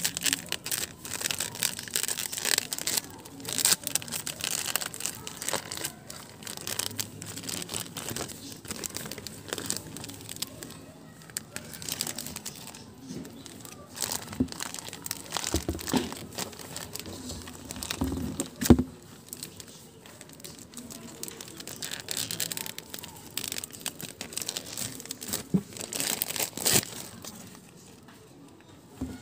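Clear plastic wrapping crinkling and tearing as it is peeled off a saint statue, in irregular crackles throughout, with a few dull bumps about halfway through.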